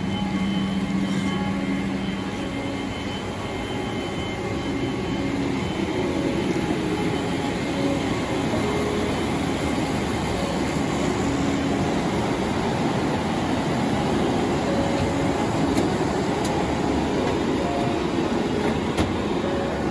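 Steady airliner cabin noise: an even rumble and hiss of engines, airflow and ventilation filling the passenger cabin.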